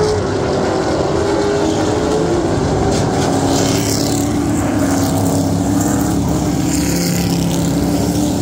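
Hot rod race cars running hard around a short oval track. Several engines sound at once in a loud, steady din, and their pitch slides as the pack goes through the turn and past.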